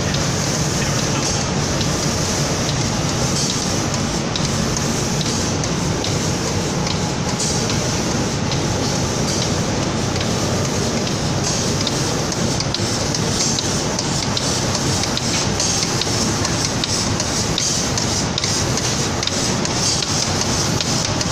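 Automatic door paint spraying line running: a steady hiss of compressed-air spraying over continuous machinery noise.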